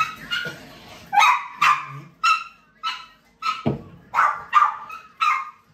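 Dog barking repeatedly in short, high-pitched barks, about two a second, starting about a second in. Partway through, one low thud of a firework bang.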